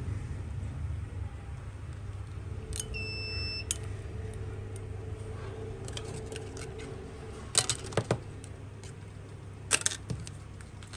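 A short electronic beep lasting just under a second, with a click at its start and end, then a few sharp clicks of small hard parts over a steady low hum.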